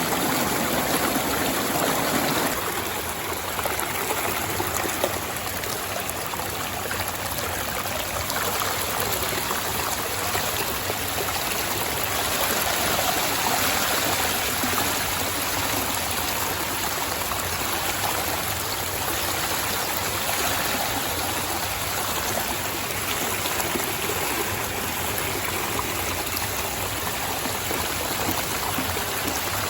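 Running river water, a steady rushing and trickling flow. The deeper part of the rush thins out about two and a half seconds in.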